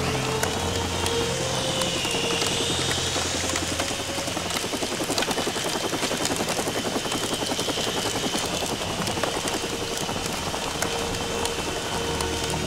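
Small remote-control gyro helicopter running: a steady high electric-motor whine that rises and dips slightly a couple of seconds in, over continuous rotor noise.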